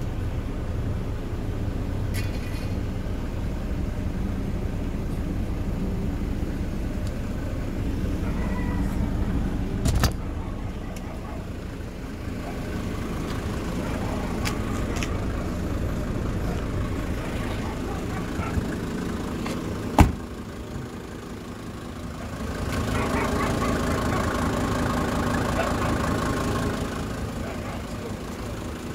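Steady low rumble of a motor vehicle, broken by two sharp knocks about ten and twenty seconds in. Near the end a louder stretch adds a steady higher hum.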